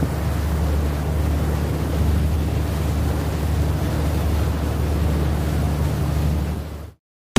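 A fishing boat's engine running at a steady low hum, with wind buffeting the microphone and water rushing past the hull; it cuts off abruptly near the end.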